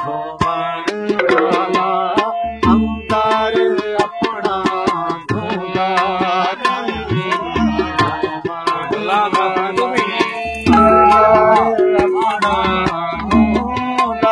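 Harmonium playing a melody over a rhythmic hand-drum accompaniment, in an instrumental passage of a Kashmiri folk song.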